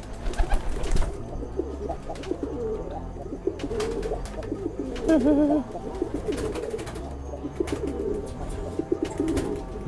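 Domestic pigeons cooing, a low warbling coo repeated throughout and loudest about halfway through, with a few short clicks. It is the courtship cooing of a newly paired cock pigeon, which looks like driving (giring) the hen.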